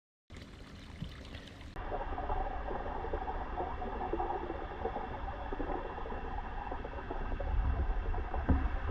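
Running water, an even splashing hiss with low rumble beneath it, growing louder near the end. It starts after a short silence and changes abruptly about two seconds in, where the recording cuts.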